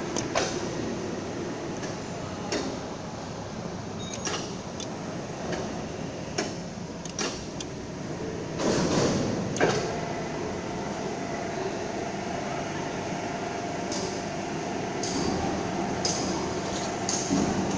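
Factory floor machinery noise: a steady mechanical rumble broken by scattered sharp clicks and clanks, with a louder clatter about nine seconds in and a steady whine from about ten seconds on.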